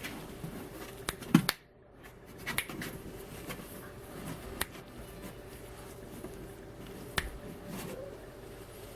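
Scattered light clicks and knocks over a steady low hum, with one louder knock about a second and a half in.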